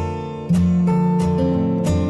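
Background music: strummed acoustic guitar playing chords at a steady pace.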